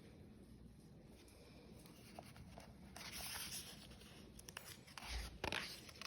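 Faint paper rustle of a picture-book page being turned, with a few light handling clicks and a soft thump near the end.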